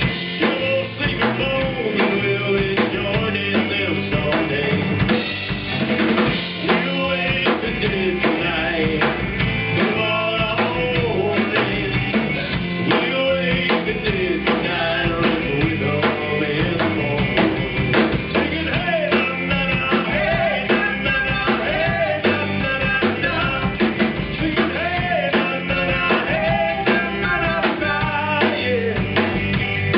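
Live band playing a rock song: a singer over electric guitar, bass and drum kit, with a steady beat.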